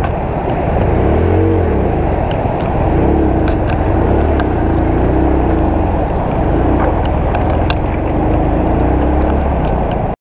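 Small motorcycle engine running in low gear over a rough stony track, its pitch rising and falling with the throttle, with a few sharp clicks and knocks as the bike jolts over stones.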